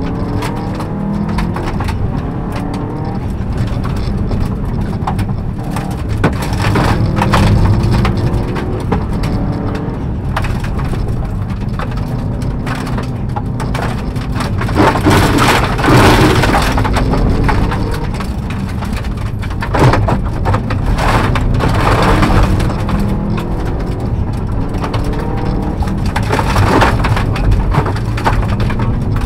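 Subaru Impreza rally car's turbocharged flat-four engine heard from inside the cabin at speed on a gravel stage, its pitch rising and falling as the driver works through the gears. Stones and gravel rattle and crack against the underside throughout.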